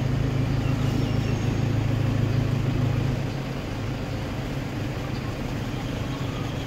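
A motor vehicle engine running with a steady low hum that drops away about three seconds in, over street traffic noise.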